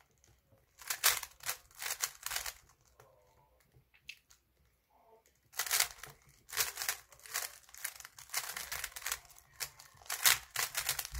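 A plastic 3x3 Rubik's cube being turned fast by hand: its layers give a rapid clicking clatter in quick flurries, with a pause of about three seconds after the first couple of seconds.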